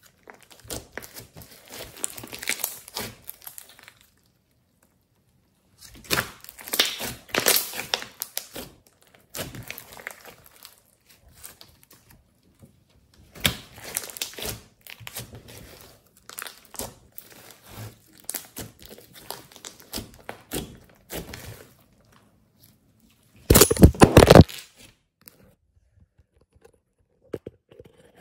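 Glossy slime being stretched, folded and squeezed by hand, giving sticky crackling and tearing sounds in irregular bursts with short pauses between them. The loudest burst comes about 23 seconds in.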